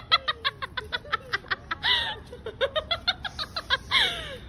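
People laughing hard in fast, even ha-ha bursts, about six a second, with two high squeals that fall in pitch, about two seconds in and near the end.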